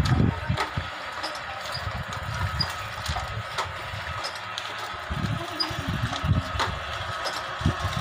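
Automatic double-die paper dona (bowl) making machine running, its 1 HP electric motor giving a steady hum. Irregular low thuds and occasional sharp clicks sound over it.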